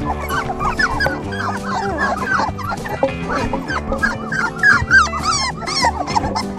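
Puppies whimpering and yipping in many quick, high squeaks, over background music with steady held notes.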